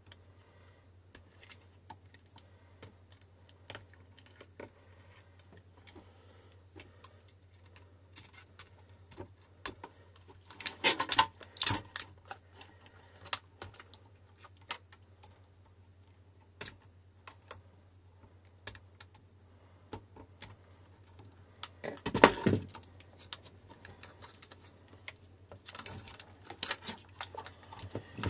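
Utility knife blade clicking and scraping as it slits the plastic heat-shrink wrap on an e-bike lithium battery pack, the wrap crackling in three louder bursts as it is cut and peeled back. A faint steady low hum lies underneath.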